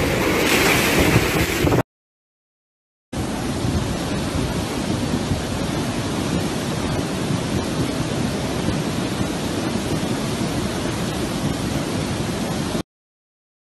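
Strong hurricane wind blowing for about the first two seconds, then cut off. After a second of silence, a flood torrent rushing as a loud, steady noise for about ten seconds, ending abruptly near the end.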